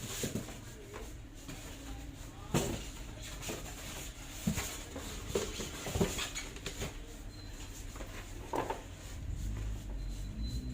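Scattered light knocks and clicks of parts and tools being handled over a low steady hum.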